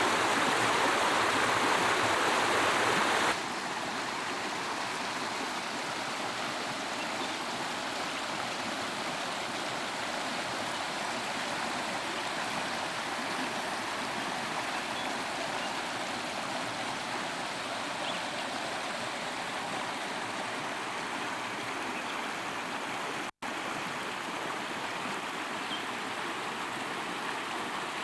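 Steady rush of storm water, an even noise without pitch. It is louder for the first three seconds, then drops abruptly to a lower steady level, with a split-second gap about five seconds before the end.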